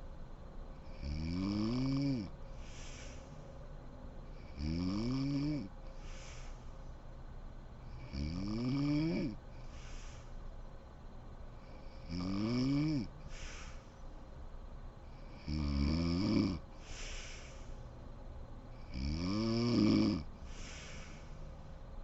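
A sleeping woman snoring: six drawn-out snores on the in-breath, each rising in pitch, about every three and a half seconds, each followed by a short hissy breath out.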